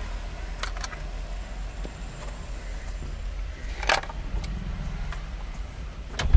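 A few sharp clicks and knocks of tools and parts being handled as a car's steering wheel and airbag assembly are taken apart, over a steady low hum. The loudest knock comes near the end.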